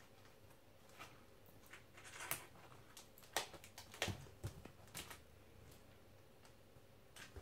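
Cat clawing and pawing at a cardboard box: a scatter of short scratches and taps, busiest in the middle, with a few sharper ones standing out.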